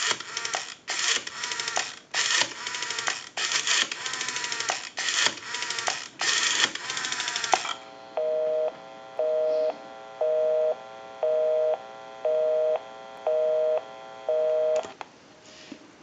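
Rotary dial of a candlestick telephone being dialed: the dial is wound and spins back several times, clicking and whirring as it sends its pulses. Then a busy signal of seven steady two-tone beeps, about one a second, which stops near the end.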